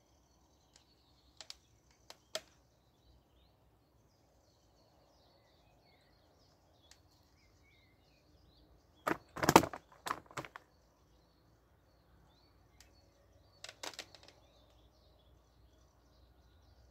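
Faint birdsong over quiet outdoor ambience, broken by a few sharp clicks in the first couple of seconds, a loud cluster of knocks and rustling about nine to ten and a half seconds in, and a shorter cluster near fourteen seconds, from a person moving close by and getting up from a wooden chair.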